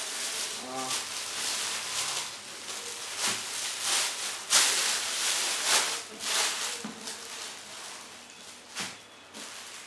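Thin plastic carrier bag crinkling and rustling as a boxed camera lens is pulled out of it, loudest about halfway through and quieter over the last few seconds.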